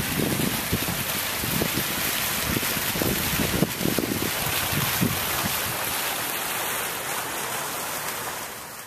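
Small fountain jets splashing steadily into a shallow pool, with irregular gusts of wind buffeting the microphone.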